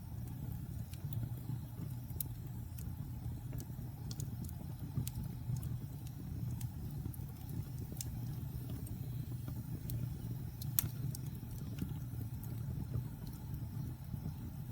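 Wood fire burning in a fireplace: a steady low rumble of flames with scattered small crackles and one louder pop about two-thirds of the way through.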